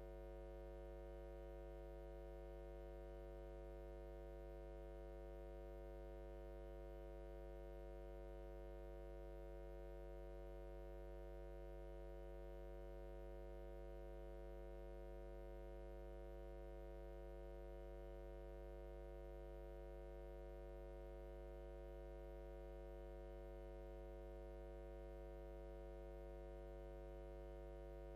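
Faint, steady electrical mains hum: a low drone with a stack of higher overtones above it, unchanging.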